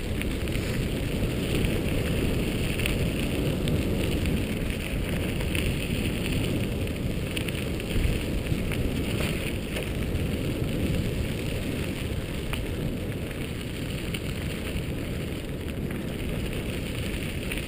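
Dog scooter's tyres rolling fast over a gravel trail, a steady rush of wheel noise mixed with wind on the microphone.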